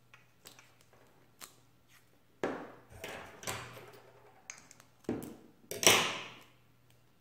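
Electrical tape and scissors handled on a tabletop: a few light taps, then short rasping sounds of tape being pulled off the roll and cut, the loudest about six seconds in.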